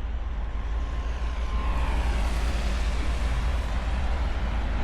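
Steady low rumble of running engines with an even hiss over it, as from idling heavy vehicles or a ship's machinery; a faint whine rises and fades about midway.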